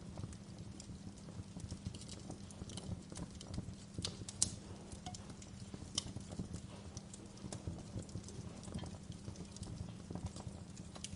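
Wood fire burning in a fireplace, crackling with frequent, irregular sharp pops over a steady low rumble of flame; two pops near the middle stand out as the loudest.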